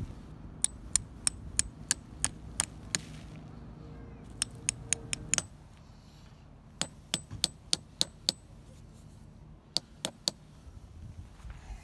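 Small hammer tapping metal tent stakes into sandy ground: four quick runs of sharp, ringing metallic strikes, about three a second, with short pauses between the runs.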